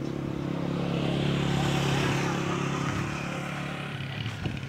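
A motor vehicle's engine running close by, with a hiss of tyres or wind above it; it swells to its loudest about two seconds in and then fades as it moves off.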